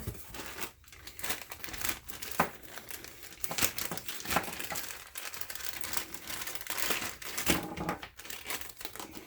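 Packaging being handled and unwrapped: crinkling and rustling with many irregular crackles and small clicks throughout.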